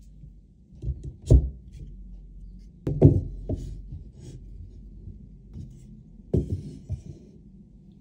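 Parts of a wooden laptop stand knocking together as a crossbar is pushed into the side pieces' slots. About six short wooden knocks and clunks come in small clusters, the loudest about three seconds in.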